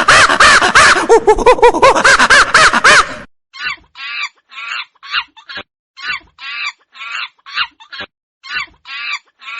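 Monkeys calling: a loud, dense mass of overlapping calls that rise and fall in pitch, cutting off about three seconds in. It gives way to short, separate chattering calls, about two a second, with brief gaps between them.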